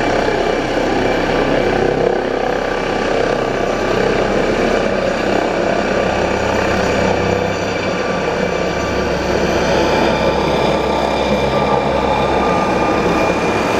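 MD900 Explorer air ambulance helicopter lifting off and climbing overhead: loud, steady rotor noise with a high turbine whine running through it. The MD900 has no tail rotor (NOTAR), so the sound comes from its five-blade main rotor and twin turbine engines.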